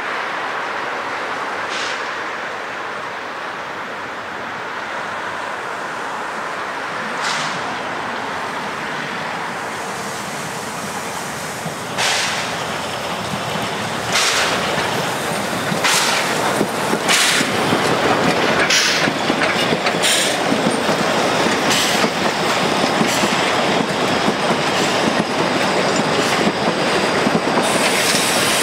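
Narrow-gauge steam train, locomotive 99 4801 with its coaches, approaching and passing close by. The rolling rumble grows louder about halfway through, with sharp clacks of the wheels over the rail joints coming more often as the coaches roll past.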